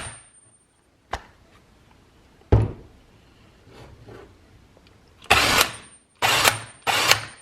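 A 1/2-inch drive ratchet with a deep axle-nut socket fitted is handled. There is a sharp click about a second in, then a metal knock, and near the end three short bursts of rapid ratchet clicking as the handle is swung back and forth.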